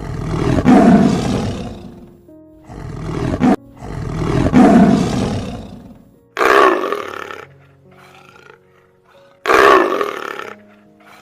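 A large animal roaring: five loud roars, the first and third the longest at about two seconds each, over soft background music with held notes.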